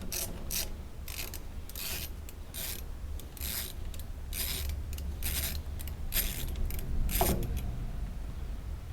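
Ratchet wrench clicking in short repeated runs as it turns out a starter mounting bolt, stopping about seven and a half seconds in.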